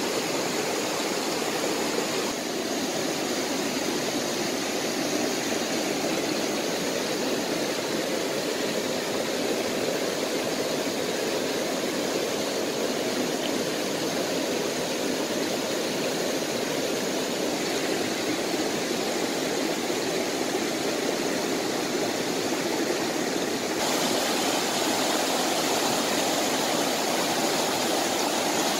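Shallow rocky stream rushing over stones: a steady, even rush of water whose tone shifts slightly twice, a couple of seconds in and again near the end.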